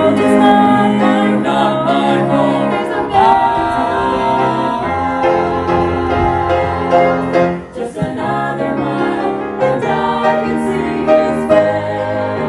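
Music with a choir singing, in a gospel style.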